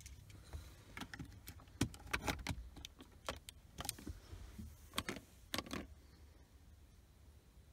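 Hard plastic clicks, scrapes and knocks as a Vodool Bluetooth FM transmitter car charger is pushed into a car's cigarette lighter socket and handled. The clicks come in uneven clusters and stop about six seconds in.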